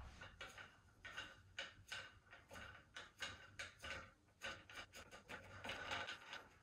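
Faint, irregular clicks, taps and rubbing of hands fitting a tray and stabilizer onto a telescope tripod's legs.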